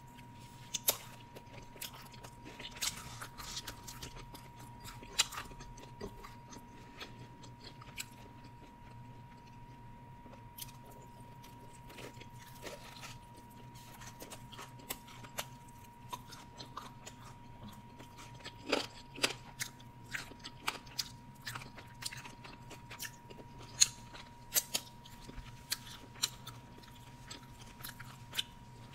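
Close-miked chewing and mouth sounds of a person eating pizza: irregular wet clicks and crunches, some sharper than others, over a faint steady tone.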